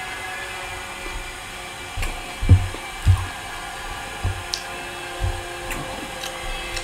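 Steady mechanical drone from work going on next door, with a run of irregular heavy low thuds, the loudest about two and a half seconds in, and a few faint clicks.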